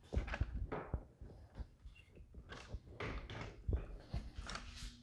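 A few dull thumps and scuffs: footsteps on a concrete floor and handling noise as the camera is carried around the workbench.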